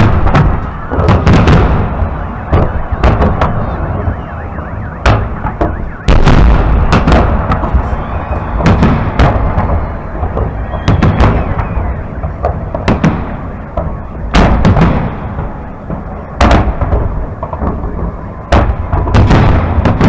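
Fireworks display: aerial shells bursting overhead, sharp bangs about every second at irregular spacing over a continuous low crackle and rumble.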